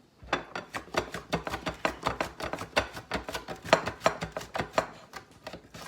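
Cucumbers being sliced on a kitchen mandolin set to its thick-slice blade: a quick, steady run of crisp cutting strokes, several a second, easing off about five seconds in.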